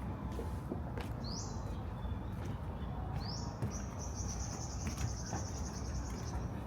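A high-pitched call that sweeps quickly upward, heard twice; the second runs on into a pulsing trill lasting about three seconds. A steady low rumble lies underneath, with a few faint footstep-like ticks.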